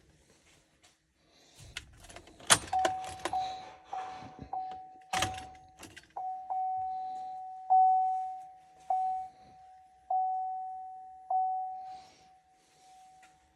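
Clicks and rattles of keys, then a truck's dash warning chime sounding over and over: one tone struck roughly every second, each stroke fading. The ignition is switched on to prime the L5P Duramax's fuel system with the lift pump after a fuel filter change.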